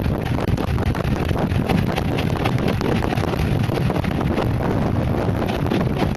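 Wind rushing steadily over the microphone of a mountainboard rolling fast downhill, mixed with the rumble of its air-filled tyres on asphalt.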